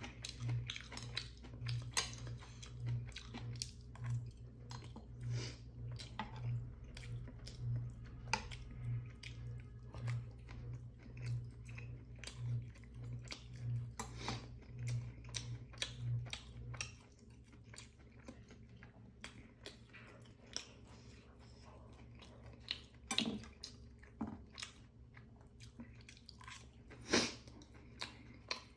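Close-miked eating: a man chewing and biting food with wet mouth sounds, with sharp clicks of metal chopsticks and spoon against a ceramic bowl, the loudest two near the end. A low hum pulsing about twice a second runs underneath and cuts off about 17 seconds in.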